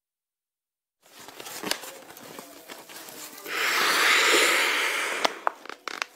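A plastic bag crinkling and crackling as it is handled, starting about a second in. A louder rush of noise lasting over a second follows as the bag is held up to the face, then a few more crinkles.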